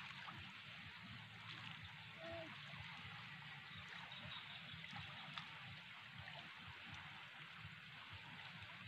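Faint, steady rush of a fast-flowing river.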